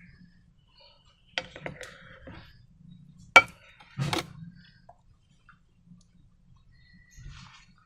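A handful of sharp clicks and knocks, the loudest about three and a half seconds in, with fainter taps around them.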